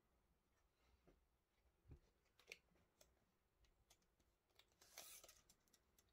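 Faint handling noises: light clicks and knocks as a fixed-blade knife is turned over in the hands, then about five seconds in a short scraping rattle as the steel tape of a tape measure is pulled out.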